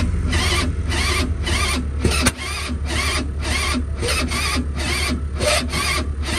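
Stels Capitan snowmobile engine being cranked by its starter on a cold start at about −30 °C, turning over slowly and evenly at about three strokes a second without catching.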